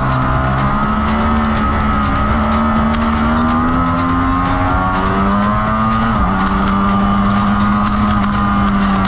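2020 Ducati Streetfighter V4's 1103 cc V4 engine under load at track speed. Its revs climb gradually, drop sharply at an upshift about six seconds in, then hold fairly steady.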